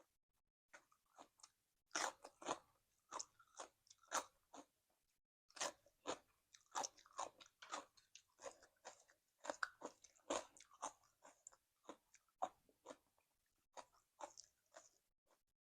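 A person chewing crunchy food: irregular runs of crisp crunches and bites with brief pauses.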